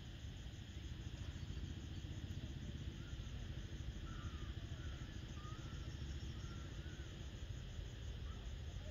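Evening outdoor ambience: insects chirring in a steady pulsing drone, a few short bird chirps in the middle of the stretch, over a continuous low rumble.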